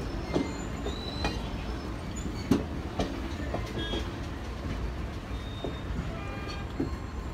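Circus train passenger cars rolling past: a steady low rumble of steel wheels on the rails, with irregular clicks and clanks at the rail joints and a few brief high wheel squeals.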